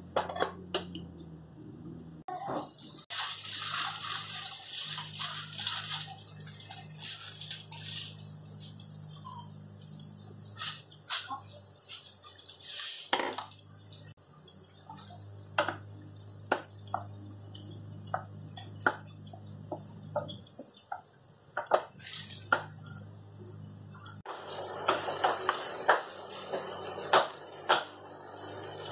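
Sliced mushrooms sizzling and bubbling in their juices in a stainless-steel frying pan, over a steady low hum. Scattered sharp taps of a utensil sound against the pan, growing busier and louder with stirring near the end.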